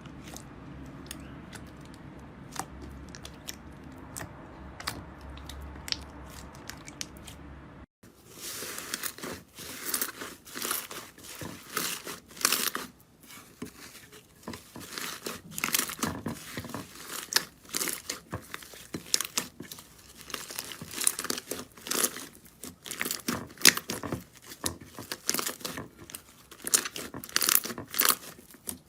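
Slime being squeezed and pressed by hand. Sparse small clicks and pops come first. After a cut about eight seconds in, there is dense, louder crackling and crunching.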